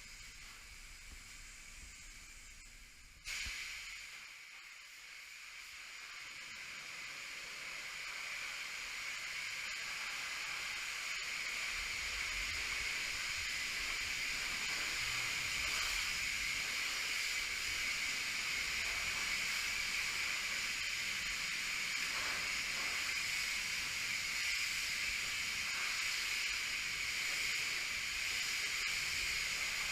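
Car wash pressure wand spraying water, a steady hiss that starts suddenly about three seconds in and grows louder over the next several seconds.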